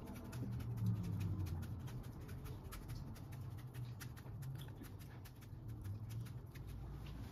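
Chef's knife shaving a cucumber into a thin continuous sheet (katsuramuki), giving many small, crisp crackling clicks as the blade moves through the flesh. A steady low hum runs underneath.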